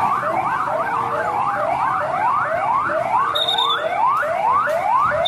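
Police car siren sounding in fast repeated sweeps, about three a second; in the first second or so the sweeps rise and fall, then they turn into quick rising whoops. A short high beep sounds about three seconds in.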